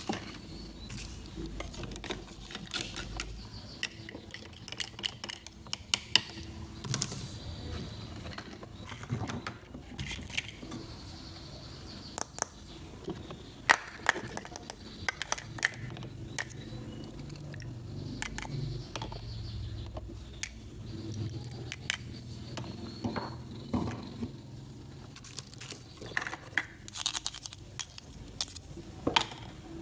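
Small toy kitchen pieces being handled, giving irregular sharp clicks, taps and light knocks, with a few louder clicks.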